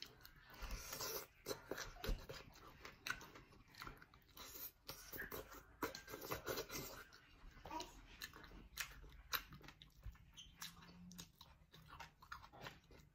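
A person chewing and biting mouthfuls of cooked sweet potato leaves and stems, a soft run of many short, irregular wet smacks and crunches.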